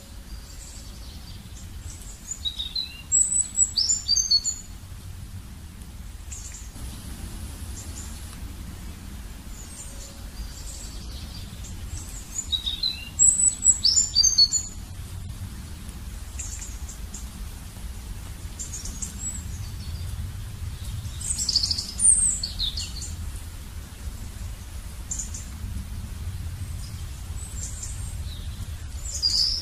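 Birds chirping and singing in quick bursts of short rising and falling whistles, over a faint low rumble. The same song phrase comes back about ten seconds later.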